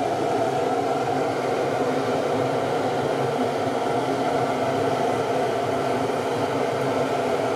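Steady mechanical whir with a constant hum of several fixed tones, unchanging throughout, like machinery or a fan running in a workshop.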